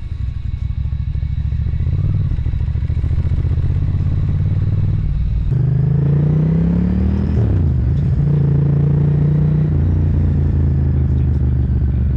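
Ducati ST3's L-twin engine pulling the motorcycle along at town speed. About halfway through, the note climbs as it accelerates, drops with a gear change, then holds steady.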